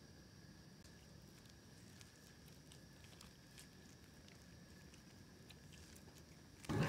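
Faint, scattered clicks of a kitten eating, over a steady faint hiss. A much louder sound starts abruptly just before the end.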